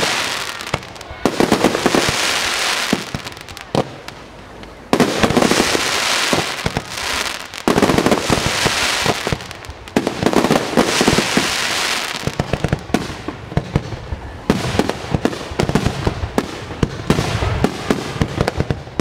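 Fireworks exploding in repeated waves of rapid crackling bangs, with short lulls between the volleys and a dense run of quick pops near the end.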